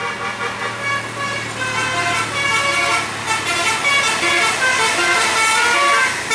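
Basuri telolet air horn on a bus playing a tune of short overlapping notes that step up and down, growing louder about halfway through, over a bus engine's steady low hum.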